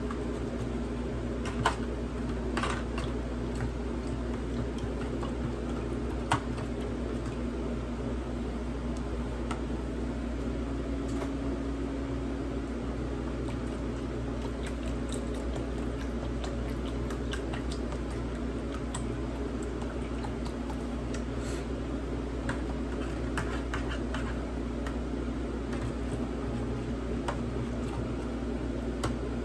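Steady low hum in a small room, with a few sharp clicks and taps of metal utensils against an aluminium foil roasting pan, the loudest about two seconds and six seconds in.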